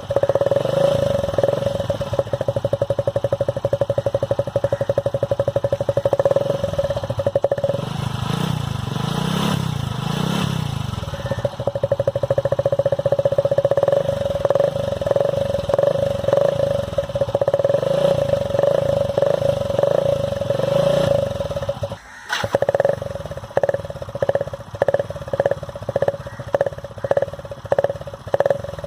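Motorcycle engine running, its exhaust note altered to sound like a KTM Duke. The engine runs steadily, wavers for a few seconds about a third of the way in, and after a short break about three-quarters through comes in quick pulses, about two a second.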